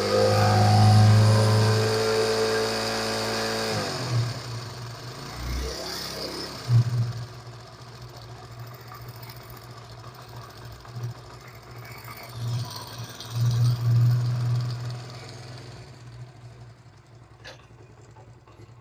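Motorcycle engine revved, the revs falling away about four seconds in, then running at idle with a few short throttle blips before it fades out near the end. Its engine noise grows with the revs and sounds like a timing-chain rattle, but it persists after chain changes; the cause is piston ring noise from a worn cylinder bore and piston.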